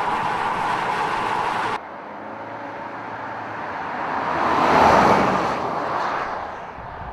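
A steady rushing noise that cuts off abruptly about two seconds in, then a vehicle passing by, swelling to its loudest about five seconds in and fading away.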